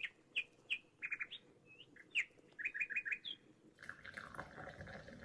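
Small bird chirping: a quick series of short chirps and brief rising notes for about three seconds, then a softer, steadier hiss-like sound takes over near the end.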